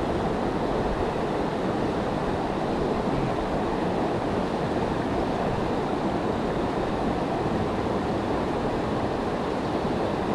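Steady rush of a fast-moving creek running as white water.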